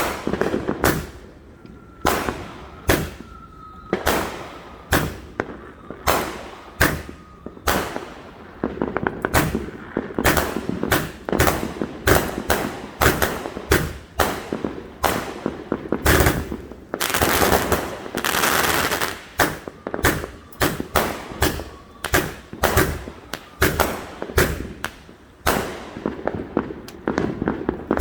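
Consumer aerial fireworks going off in a rapid barrage of bangs, one after another, as in a grand finale. A faint whistle runs through a few seconds early on, and about two-thirds through the bangs merge into a burst of dense crackling.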